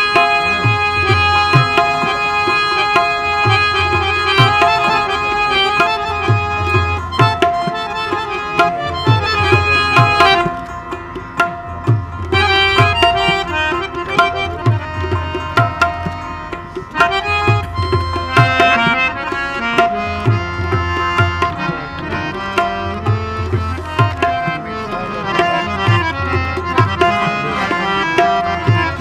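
Instrumental introduction of a Pashto ghazal on harmonium, rabab and tabla: the harmonium holds sustained notes while the tabla keeps a steady rhythm with deep bass strokes. The music thins briefly twice, about ten and sixteen seconds in.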